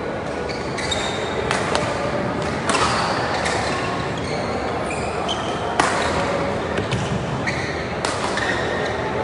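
Badminton rally: irregular sharp racket strikes on the shuttlecock and short high squeaks of shoes on the court mat, with an echoing hall background.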